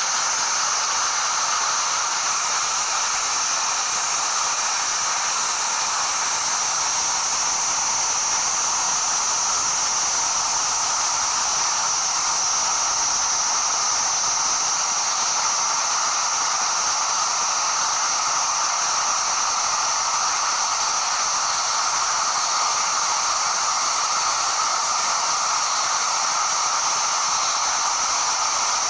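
Steady rushing of a waterfall over rocks: an even hiss that holds at one level throughout.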